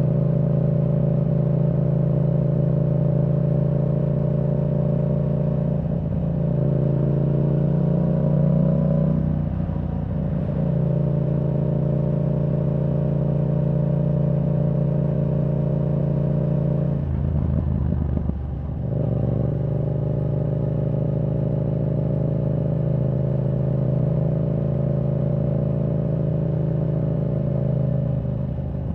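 Yamaha R7's 689 cc parallel-twin engine through a Yoshimura R77 exhaust with the dB killer removed, running at steady cruising revs. The note breaks briefly about ten seconds in, and about two-thirds of the way through the revs drop for a couple of seconds before picking up again.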